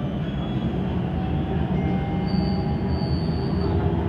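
Siemens Inspiro metro train running along its track, heard from inside the car: a steady rumble of wheels and running gear. About halfway through, a thin high squeal comes in for a little over a second.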